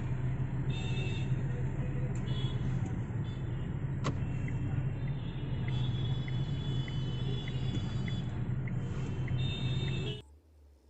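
Steady engine and road rumble of the Tata Zest heard from inside its cabin while driving, with a single sharp click about four seconds in and faint regular ticking for a few seconds after. The sound cuts off abruptly near the end.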